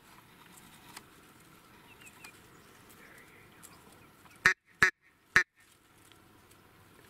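Three loud, short duck quacks in quick succession about four and a half seconds in, over a faint steady outdoor background.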